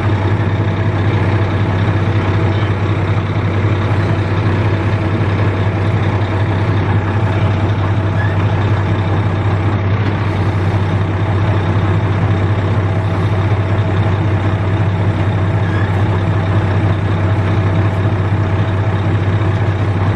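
Heavy machinery engine running steadily at a constant speed, with a strong low hum that does not change.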